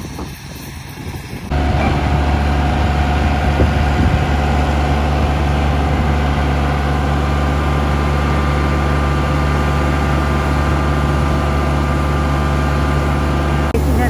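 Yanmar combine harvester running close by: a steady, loud engine drone with a thin whine over it. It starts abruptly about a second and a half in, and drops out briefly near the end.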